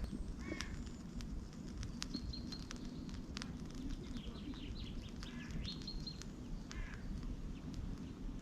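Small birds chirping: short high notes, some in quick runs of three. Underneath is a low steady rumble with scattered faint clicks.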